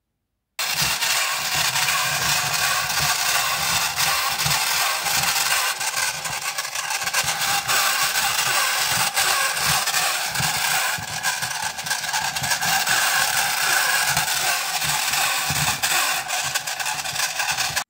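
Marks & Spencer Insect-a-zoid wind-up-style toy robot walking under its own motor, its gearbox making a loud, harsh mechanical noise with irregular low knocks, starting about half a second in. The noise is from the motor-shaft pinion gears rubbing on the crown gear before they were moved up the shaft.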